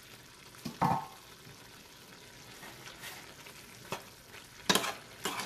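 Mutton liver cooking in a pan in its own released water, sizzling faintly, with about four sharp knocks of a utensil against the pan as it is stirred, the loudest near the end.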